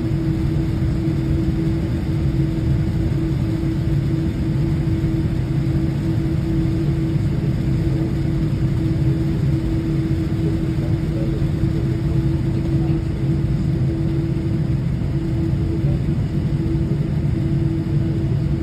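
Airliner cabin noise with the engines running as the aircraft taxis: a steady low rumble with a constant hum.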